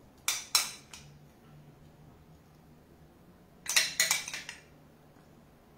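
Spoon clinking against a small glass bowl while vegetables are scooped out: two sharp taps near the start, then a quick run of clinks about four seconds in.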